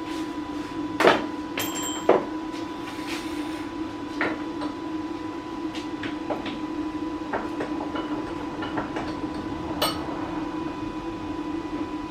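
A steady machine hum with scattered metallic knocks and clanks. The loudest come about one second and two seconds in, and again near the end.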